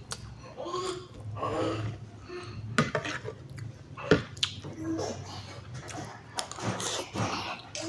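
Scattered clinks and knocks of dishes and cutlery during a meal, with faint voices in the background.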